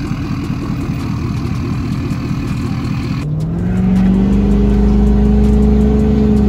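Ford 6.7L Powerstroke V8 turbo diesel in an F-250, running an emissions-off 130 hp tune, heard from outside with a fast, even exhaust pulse. About three seconds in it is heard from inside the cab under acceleration: the engine note rises for about a second, then holds as a steady drone.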